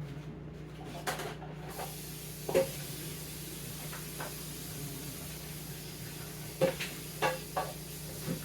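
Dishes and containers knocking and clattering in a kitchen, about six sharp knocks spread across the few seconds, over a steady low hum with a hiss that starts a couple of seconds in.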